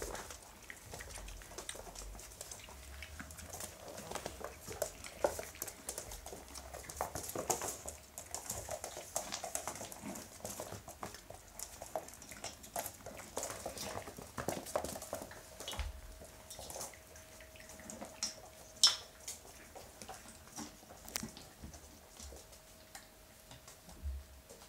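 Month-old Hungarian vizsla puppies eating dry kibble from stainless steel bowls: a continual run of small crunches and clicks as food and teeth knock against the metal.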